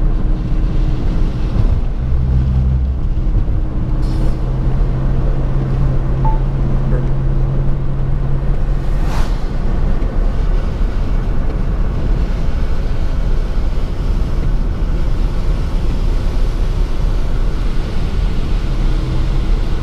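Car interior road noise while driving on a wet road: the engine running and tyres on wet pavement, a steady loud rumble. A low hum comes in for several seconds near the start, and there is a brief swish about nine seconds in.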